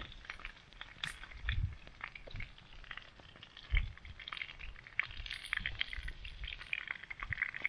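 Chicken breast fillets frying in oil in a pan over a wood campfire: dense, irregular crackling and spitting, with a few low thumps.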